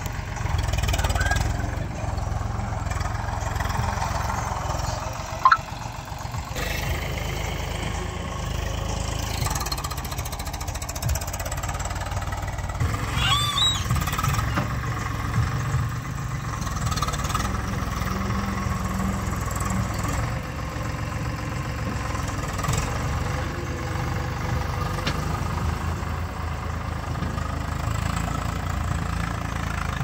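Diesel tractor engines running steadily while a front-loader tractor works the loader, with a deep rumble that rises and falls a little. A single sharp knock about five and a half seconds in.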